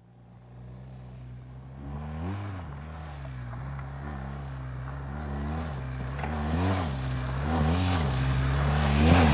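Adventure motorcycle riding toward the listener on a dirt road. The engine's revs rise and fall several times, and the sound grows steadily louder as the bike approaches.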